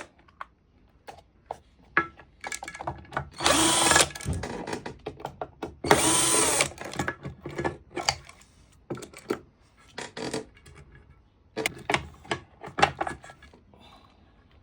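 Power drill-driver running in two bursts of about a second each, its motor pitch rising and falling, driving screws. Short clicks and knocks of parts and screws being handled come between the bursts.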